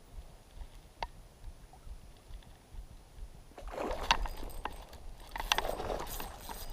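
Water splashing in two short bursts, about three and a half and five and a half seconds in, over a low wind rumble, with a single sharp click about a second in.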